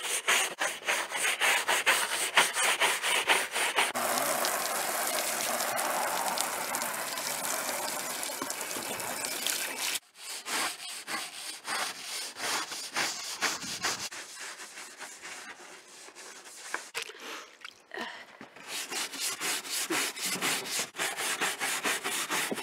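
Stiff plastic-bristled scrub brushes scrubbing the dirty, mould-stained roof of a camper van in quick back-and-forth strokes. A steady hiss fills several seconds in the first half and cuts off abruptly, and the strokes come back quieter, then strong again near the end.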